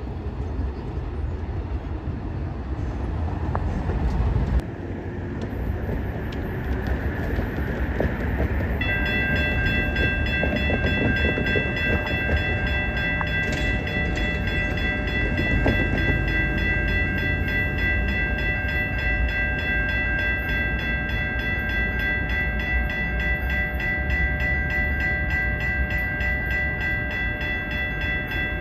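Low, steady rumble of trains on the line: one moving away, then another approaching. From about a third of the way in, a steady high-pitched ringing of several held tones sounds over the rumble without a break.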